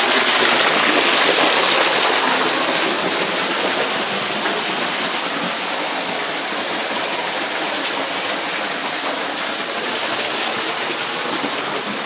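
Small waterfall pouring off a rock overhang and splashing onto stones, a steady rushing hiss that grows a little quieter after about two seconds.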